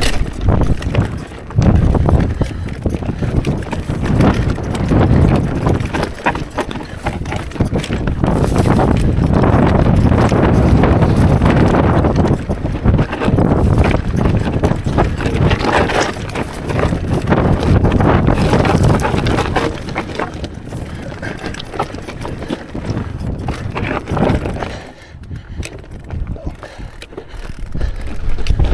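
Mondraker Crafty electric mountain bike clattering and rattling over a rocky trail, with a dense run of knocks from tyres and frame hitting rock. It goes quieter for a few seconds near the end.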